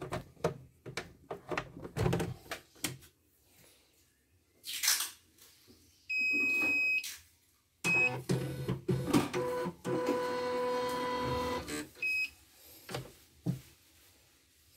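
Elnoss computerised embroidery machine powered up and tried: a run of clicks from handling it, a long electronic beep and then a short one, then its motor whirs for about four seconds and stops, followed by another short beep and a couple of clicks.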